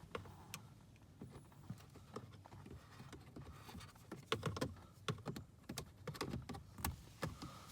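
Small plastic clicks and knocks as the cabin air filter access cover is worked open by hand, its tabs being pushed free of the housing. The clicks are scattered at first and come thick and fast in the second half.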